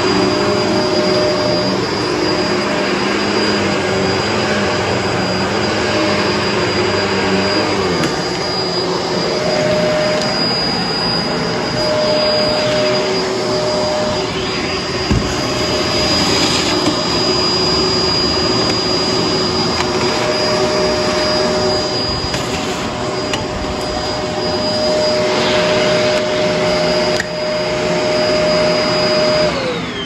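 Bissell MultiClean upright vacuum cleaner running steadily over carpet, its motor giving a steady whine, with a single knock about halfway through. Near the end the motor is switched off and its whine falls in pitch as it winds down.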